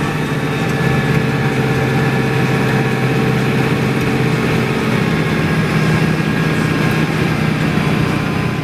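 Tracked New Holland tractor's diesel engine running steadily, heard from inside the cab as it tows a trail groomer along the snow.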